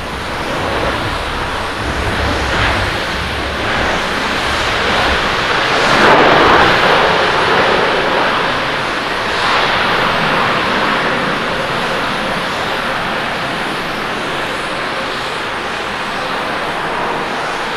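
Japan Airlines Boeing 787-8 jet engines rushing during the landing rollout, swelling to their loudest about six seconds in and then slowly fading as the airliner slows.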